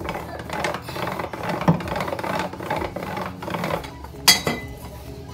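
Hands kneading flour dough for dumplings, a continuous irregular rubbing and scraping that eases off after about four seconds, with one sharp knock a little after four seconds in.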